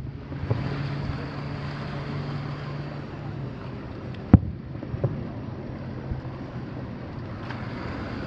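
Distant firework shells bursting: one sharp, loud bang about four seconds in and a few fainter thuds around it, over a steady low hum of background noise.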